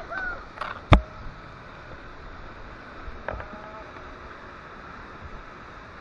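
Whitewater rushing past a kayak running a waterfall drop, with a sharp knock about a second in and a smaller one about three seconds in as the hull and paddle meet rock and water. Short high calls sound near the start and again around three seconds in.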